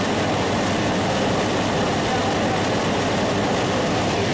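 Light aircraft in flight: steady engine drone and rushing air.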